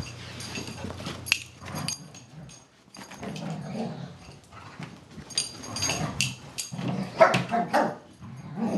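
Two dogs playing rough with each other, scuffling with short growls and whines, loudest about seven seconds in as one dog gets on top of the other.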